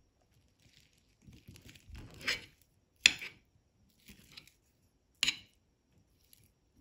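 A metal fork scraping and clinking on a china plate while cutting into a beef patty and scooping rice, with a few soft scrapes and two sharp clinks, about three and five seconds in.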